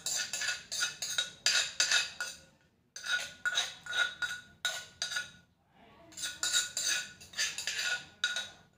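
A metal spoon scraping and clinking against the inside of a clay mortar in quick strokes, about four a second, coming in three runs with short pauses between them, a faint ringing note under the strokes.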